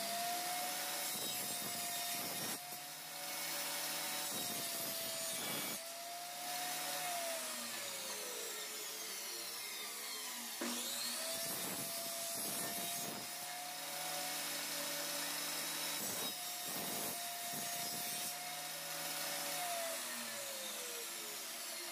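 Bench table saw running with a steady whine while pine pallet slat is cut, with repeated short rasps as the blade goes through the wood. The motor winds down about eight seconds in, starts again about ten and a half seconds in, and winds down again near the end.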